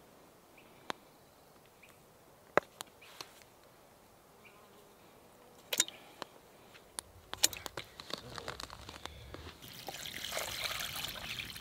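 Scattered sharp clicks and knocks from handling the seasoning bottle and meat at the cook pot, then water poured from a glass jar into the pot, a steady splashing pour over the last two seconds.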